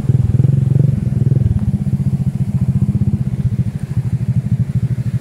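Motorcycle engine running at low revs with a rapid, even beat. It is a little louder in the first second and a half, then settles to a steady note.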